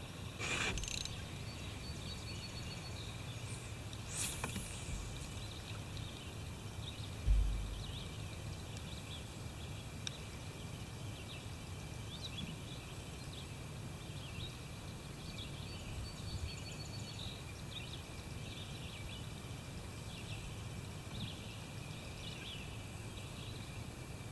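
Faint outdoor river ambience: a steady low rumble with scattered short bird chirps, and a brief low thump about seven seconds in.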